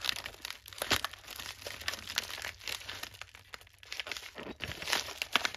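Padded plastic mailer crinkling and crackling as it is handled, a dense run of irregular crackles with sharper snaps about a second in and near the end.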